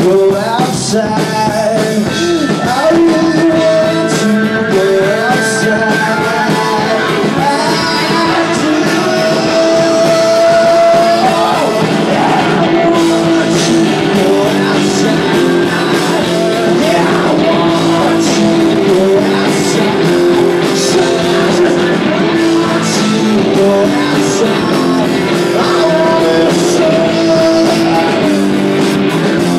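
Rock band playing live: electric guitar, bass and drums, with a man singing into a microphone.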